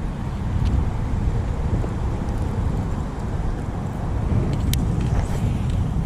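Wind buffeting the microphone, a steady uneven low rumble, with a couple of brief sharp clicks near the end.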